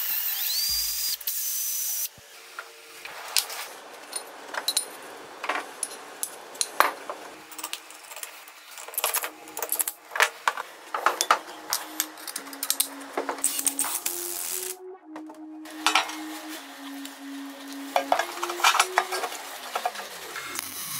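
Electric drill boring into a steel plate clamped in a vise for about two seconds, then many light metal clinks and taps as steel plates, bolts and a motor are handled and fitted.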